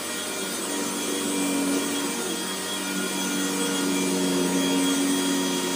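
Household vacuum cleaner running steadily: a continuous motor drone with a steady hum.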